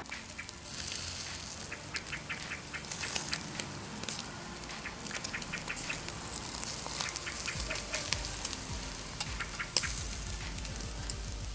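Lamb and chicken shashlik sizzling on skewers over hot charcoal, with a steady hiss and many quick crackles as fat and juices spit on the coals.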